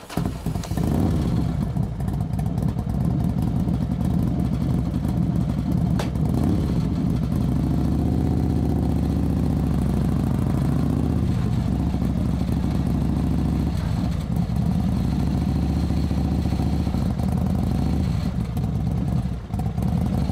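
Motorcycle engine running steadily, its pitch wavering slightly.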